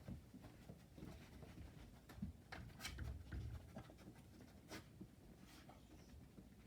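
Faint, sporadic sniffing and scuffling of a scent-detection dog searching a room for a hidden odor, with a few short sniffs around the middle.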